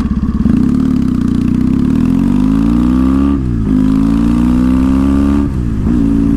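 Motorcycle engine pulling away from a stop and accelerating. Its pitch climbs, drops sharply at an upshift a little past halfway, climbs again, and drops at a second upshift near the end before running steady.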